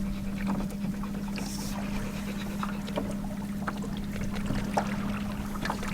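Minn Kota 28-pound-thrust electric trolling motor driving a canoe at speed, giving a steady even hum over the wash of water along the hull.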